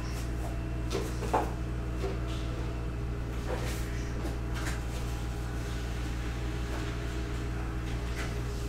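Steady low electrical hum with a few scattered light clicks and knocks.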